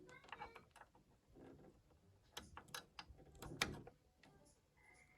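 Faint, scattered clicks and scrapes of multimeter probes being worked onto the terminals of a washing machine's heating element.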